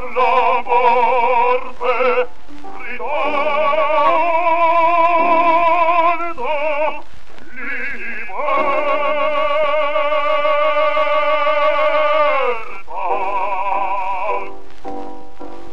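1905 acoustic 78 rpm shellac record playing the closing bars of a baritone-and-bass opera duet: sung phrases with wide vibrato, rising to long held notes about halfway through. The singing stops a second or so before the end, leaving only the record's surface hiss.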